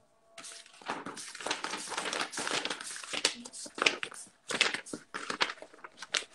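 Sheets of paper rustling and crinkling close to the microphone in dense, irregular handling noises, starting about half a second in.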